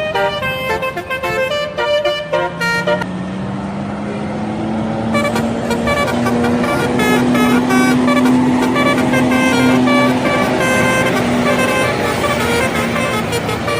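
Indonesian bus 'telolet' horn, a multi-tone horn playing a fast melody of short notes, over the bus's engine. The melody pauses from about three to five seconds in and then resumes, while a low drone rises in pitch from about two seconds in and is loudest in the middle.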